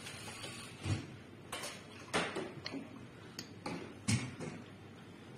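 Irregular light clicks and taps of small metal parts, several in a few seconds, as discs and washers are fitted onto the shaft of a camera fluid head during hand assembly.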